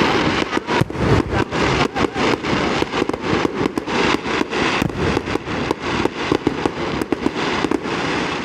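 Aerial fireworks display: a dense, rapid barrage of sharp bangs and crackles, several reports a second, over a continuous crackling rumble.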